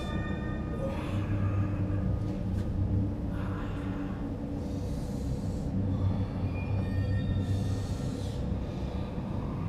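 Low, steady rumbling drone of a dark suspense score, with a few brief swells of hiss higher up.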